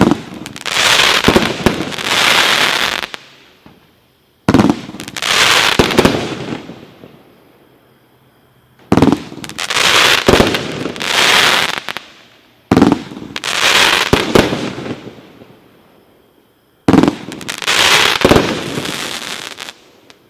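Black Cat consumer fireworks going off five times in turn, about every four seconds. Each starts suddenly with a loud crack, then gives about three seconds of dense hissing rush with scattered cracks before dying away.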